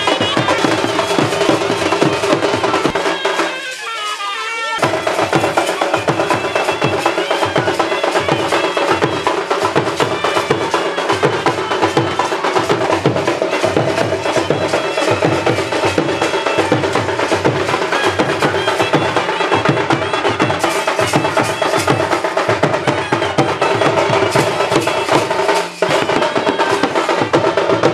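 Loud music driven by steady drumming and percussion, with the beat dropping out briefly about four seconds in.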